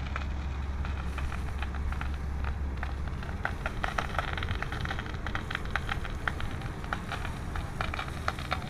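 Fire hose jet spraying water onto smouldering straw and a burnt-out tractor, with a dense crackle of short sharp snaps over a steady low hum that is strongest in the first few seconds.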